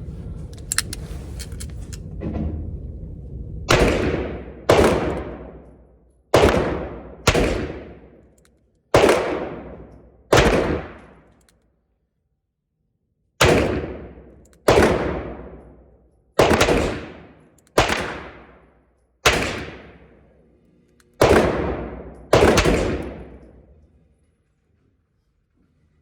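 M1895 Nagant revolver firing a string of single shots at an uneven pace, each sharp report ringing out and fading over about a second.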